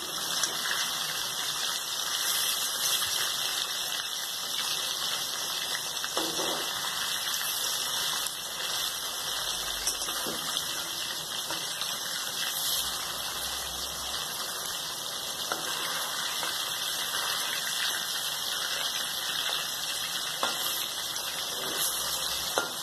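Masala-coated fish pieces shallow-frying in hot oil in a kadhai on a low flame: a steady sizzle of bubbling oil.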